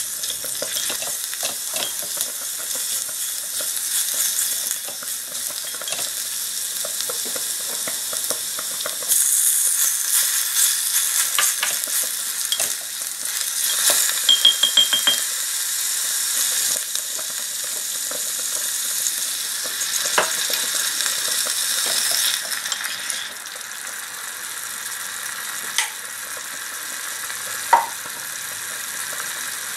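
Food sizzling in a small ceramic pot on a miniature stove while a tiny wooden spoon stirs it, scraping and tapping against the pot. A sharper knock of the spoon comes near the end.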